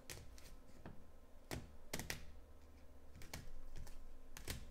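Rigid plastic card holders clicking and clacking as they are handled and set against each other: a handful of light, sharp clicks at uneven intervals.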